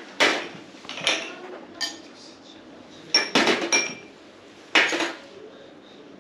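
Spoons and dishes clinking during a meal: irregular short clinks of metal on crockery, with a small cluster about three seconds in.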